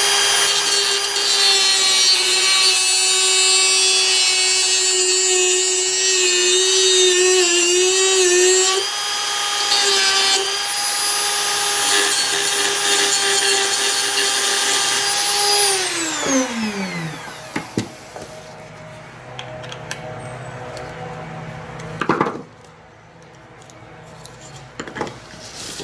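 Dremel rotary tool running at high speed while trimming the protruding end of a leg screw, its whine wavering under load. It is switched off about sixteen seconds in and spins down with a falling pitch, followed by light handling and a click.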